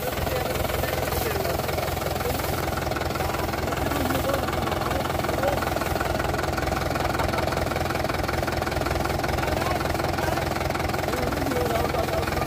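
Mahindra Yuvo tractor's diesel engine running steadily at an even speed, with no change in revs.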